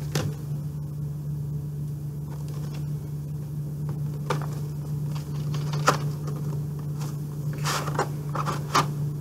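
A plastic VHS tape case being handled and opened, with the cassette drawn out: scattered clicks and scrapes, with a cluster of clicks near the end, over a steady low hum.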